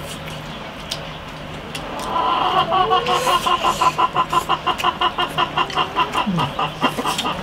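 A chicken clucking in a rapid, even run of about six clucks a second, starting about two seconds in.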